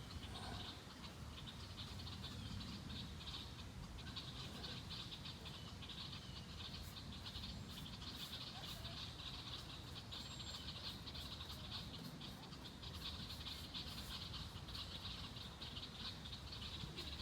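Steady chorus of wetland frogs calling: a dense, rapid, high-pitched pulsing trill that goes on without a break, over a faint low rumble.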